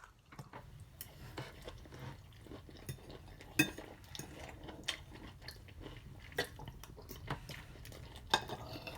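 Mukbang eating sounds: a utensil clicking and scraping against a food container, with soft chewing. The clicks are scattered, and the sharpest comes about three and a half seconds in.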